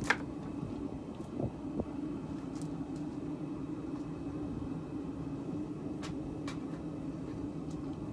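Forge running with a steady low hum while the workpiece heats. A sharp clink of metal comes right at the start, with a few faint taps and clicks later.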